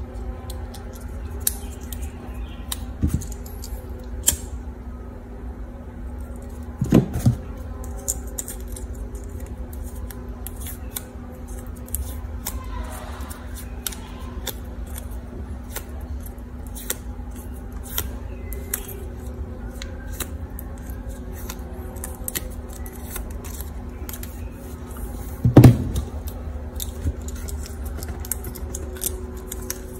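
Small scissors snipping a plastic drinking straw into leaf shapes, with many small clicks from the blades and the handled plastic and two louder knocks, about seven seconds in and near the end, over a steady low hum.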